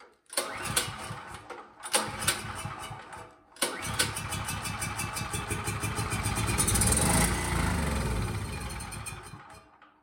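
Champion dual-fuel generator's engine cranking and firing on starting fluid sprayed into the carburetor: two short bursts, then it catches about three and a half seconds in. It runs for around six seconds, getting louder and then fading until it dies. Running only on starting fluid is the sign of a carburetor fault.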